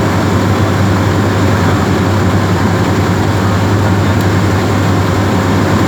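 Cessna 172R's four-cylinder Lycoming engine and propeller droning steadily at a constant power setting, heard from inside the cockpit.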